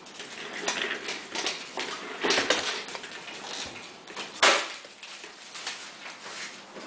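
Hands handling and tapping a tablet: irregular light clicks and taps, the loudest a sharp knock about four and a half seconds in.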